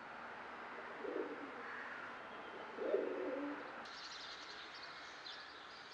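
A dove cooing twice, about a second in and again near three seconds, with small birds chirping around four to five seconds, over a steady hiss of outdoor ambience.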